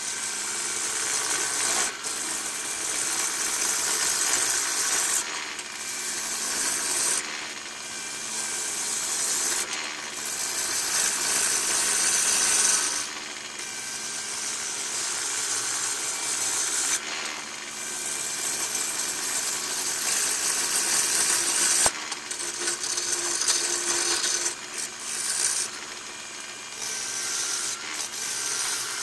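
Turning gouge cutting the outside of a large jacaranda bowl spinning on a wood lathe: a rushing, scraping noise of shavings coming off. It swells and drops again and again as each cut starts and stops.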